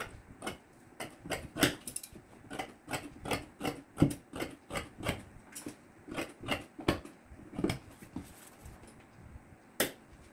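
Tailor's shears snipping through folded layers of fabric, a quick run of sharp cuts about two or three a second, then a pause and one last snip near the end.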